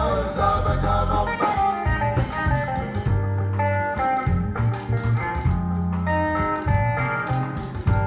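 Live band playing: an electric guitar picks a melodic line over sustained bass guitar notes and a steady drum-kit beat.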